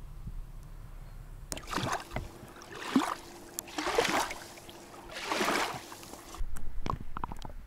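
Shallow river water sloshing and splashing right at the microphone as the camera is held at the surface, in four washes about a second apart. Near the end come a few knocks and a low rumble of handling.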